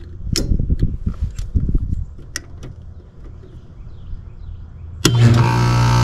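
Light clicks and rattles of meter test leads on a heat pump's control wiring over the unit's low running drone. About five seconds in, a sharp click and then a loud, steady buzzing hum starts abruptly as the Ruud heat pump package unit is switched into defrost.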